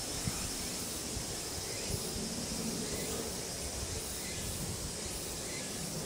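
Steady outdoor hiss with insects chirping as a thin, high, continuous tone, and a few faint short bird calls.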